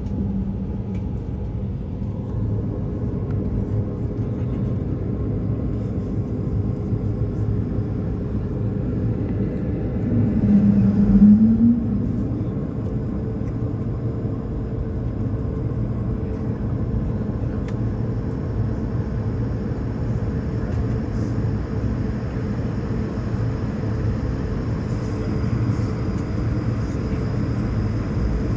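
Jet airliner cabin noise while taxiing: a steady low engine rumble. About ten seconds in a brief low wavering tone rises over it.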